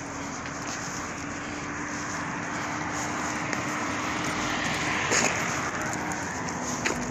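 Steady engine drone, a constant low hum that drops slightly in pitch near the end, over a rushing noise. Two short knocks about five and seven seconds in.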